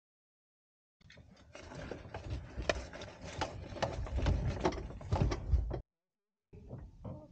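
Hang glider harness straps and buckles being fastened and pulled tight in a small cockpit: irregular clicks, knocks and rustling. It starts about a second in and cuts off near the end.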